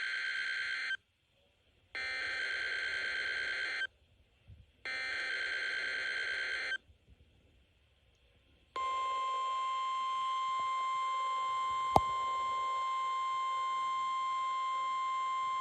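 NOAA Weather Radio Required Weekly Test alert tones. First the end of one SAME header burst, then two more bursts of buzzy, warbling digital header tones, each about two seconds long with short gaps between. After a pause the steady single-pitch warning alarm tone starts and holds, with one sharp click partway through.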